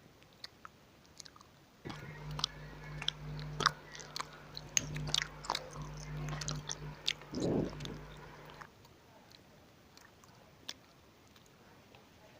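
Close-up crunching and chewing of dry red clay crumbles: crisp cracks and snaps, densest in the middle. From about two seconds in until about nine seconds, a steady low hum runs underneath, starting and stopping abruptly.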